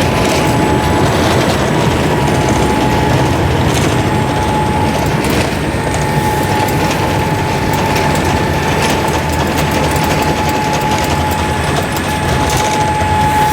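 Cabin noise inside a Boeing 787-8 airliner: a steady rush of engine and airflow noise with a held whine, overlaid by the light clicking and rattling of cabin fittings.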